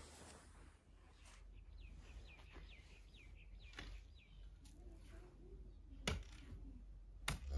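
A small bird chirping faintly, a quick run of short falling notes, with a few sharp knocks of a shovel working a manure heap, the loudest two near the end.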